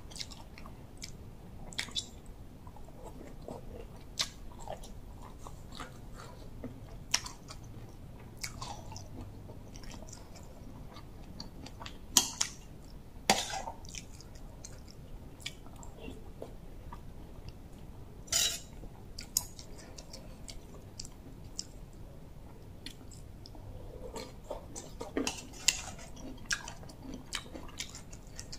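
Close-up chewing of bamboo shoots and vegetables, with soft mouth sounds and scattered sharp clicks of a spoon against the bowl.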